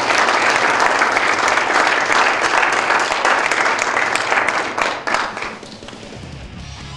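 Audience applauding, dying away about five and a half seconds in. Guitar music fades in near the end.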